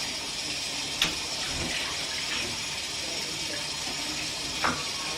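Kitchen tap running steadily into the sink, with two short knocks, about a second in and again near the end.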